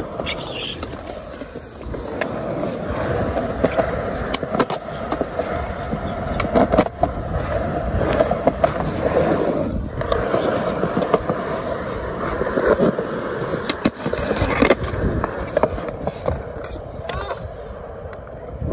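Skateboard wheels rolling over concrete, a continuous rough rumble with short sharp clicks here and there.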